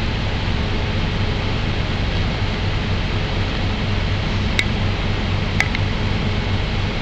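Steady drone of a car ferry's machinery with wind rushing across the open upper deck, a low hum under an even hiss. Two short, high clinks come a second apart about two-thirds of the way in.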